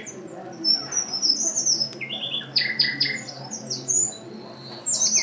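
A songbird singing, played from a recording: a run of quick, high chirps and short trills.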